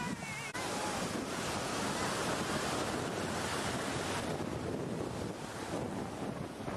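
Steady wind rushing over the microphone, with the wash of beach surf beneath it.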